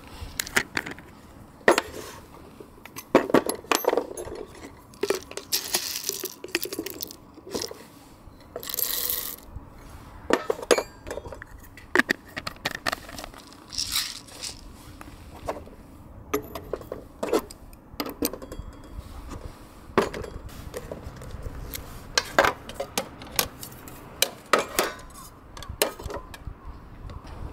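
Camp cookware and utensils being handled: irregular clinks, knocks and taps, with a few short hissing rushes.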